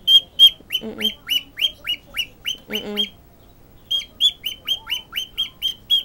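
Cockatiel screaming for attention in a fast run of short, shrill calls, about three a second, each dropping in pitch; it breaks off for a moment about three seconds in, then starts again.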